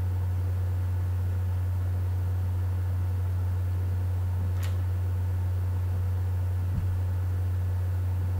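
Steady low electrical hum with faint hiss, from the recording setup. There is a faint click about halfway through and a soft low thump near the end.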